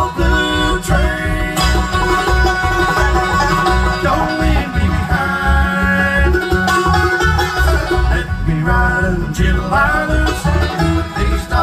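Bluegrass band playing live, with fiddle, banjo and acoustic guitar over a steady bass beat.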